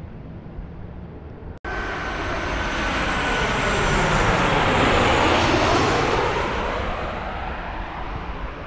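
Jet2 Boeing 737 airliner passing low overhead on landing approach: the jet engines' roar starts suddenly about a second and a half in, swells to its loudest about halfway through and then fades, with a thin whine that slowly falls in pitch as the aircraft goes by.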